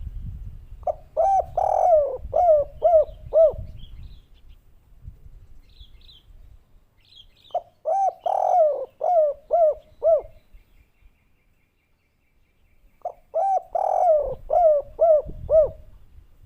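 Spotted dove (derkuku) singing its 'kuk 3' song three times, about six seconds apart: each phrase is a rough opening coo followed by a quick run of short rising-and-falling coos. A low rumble sits under the first and last phrase.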